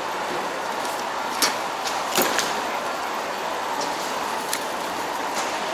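Airport baggage carousel running with a steady mechanical hum, with a few sharp clicks and knocks, about four, as a soft-sided suitcase is lifted off the belt.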